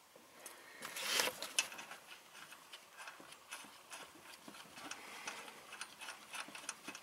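Light metallic clicks and rustling from a washer and nut being fitted by hand onto a brake master cylinder's mounting stud, with a louder scrape about a second in.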